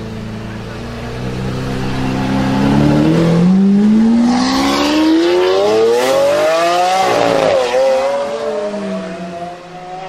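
Lamborghini Aventador's V12 accelerating hard: the engine note climbs steadily for several seconds and breaks at an upshift about seven seconds in. It then falls and fades as the car pulls away into the distance.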